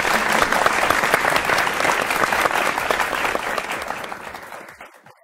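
Applause from a group of people, many claps blending into one dense patter, fading away near the end.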